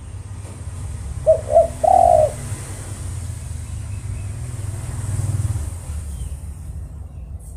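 Spotted dove (tekukur) cooing once, about a second in: two short notes followed by a longer, louder third note. A steady low rumble runs underneath.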